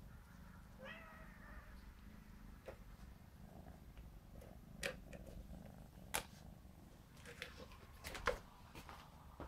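A Birman kitten meows once, briefly, about a second in. Later come a few sharp clicks and knocks, the loudest sounds here, from kittens playing with toys on a wooden floor.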